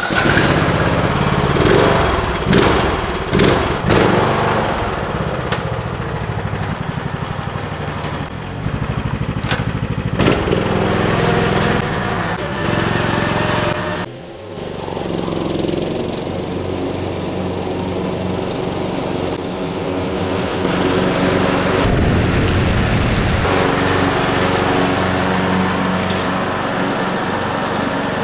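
Ride-on lawn tractor's engine starting on the ignition key, uneven for the first few seconds, then running steadily, with a short drop in level about halfway through.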